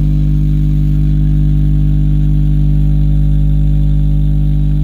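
Bare 18-inch Betavo B18-V5522 double-magnet subwoofer driver playing a steady deep test tone with a buzzing stack of overtones.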